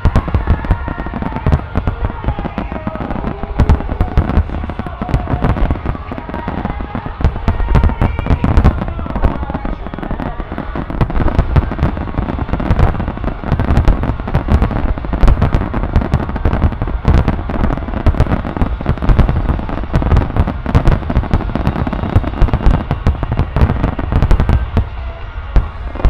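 Dense barrage of aerial firework shells bursting in rapid succession, many overlapping booms and crackles, easing slightly near the end.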